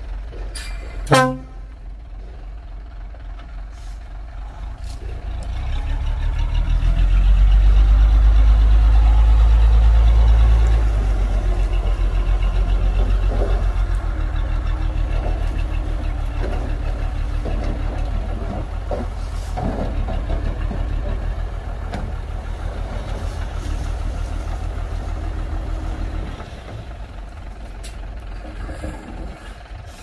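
Heavy diesel engine of earthmoving equipment working under load: it builds up over a few seconds to its loudest, eases slightly and runs steadily, then drops away near the end. A short, loud horn toot about a second in.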